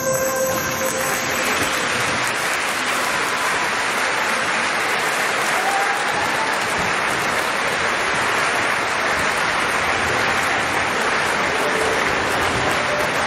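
Audience applauding steadily, with the last held notes of music dying away in the first moment.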